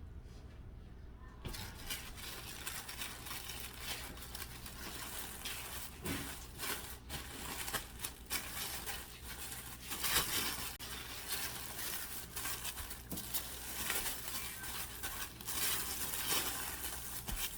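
Kitchen cooking noise: a dense crackling hiss with many small clicks and knocks, starting abruptly about a second and a half in.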